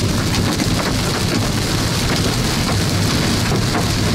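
Heavy rain and hail pelting a car's windshield and roof, heard from inside the moving car as a loud, steady patter with many sharp ticks of impacts.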